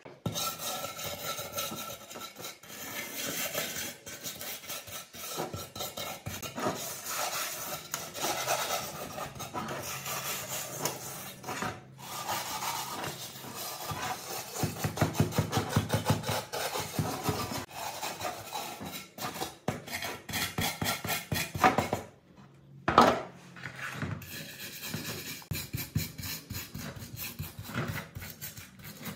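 Hand wire brush scraping flaking red paint and rust off a generator's metal fan shroud and recoil starter cover in quick back-and-forth strokes, with a short pause about three-quarters of the way through.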